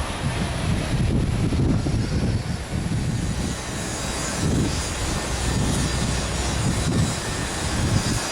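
Airliner engines running: a steady rumble with hiss, swelling a little about a second in.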